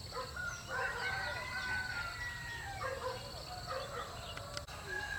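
A rooster crowing, a drawn-out call held for over a second, with a steady pulsing insect trill behind it.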